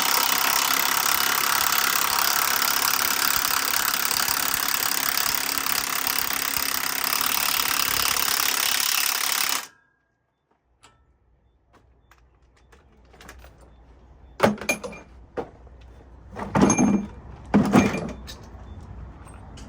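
A loud, steady mechanical noise for about ten seconds that cuts off suddenly, then after a short silence a few heavy knocks.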